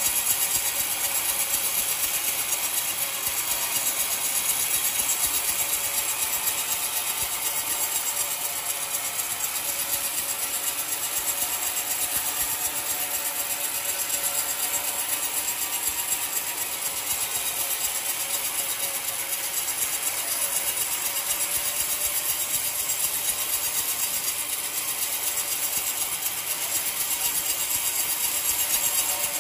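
Homemade sawmill's blade cutting lengthwise through an old coconut log: a steady, dense hiss of blade in wood with a faint held whine under it, unbroken throughout.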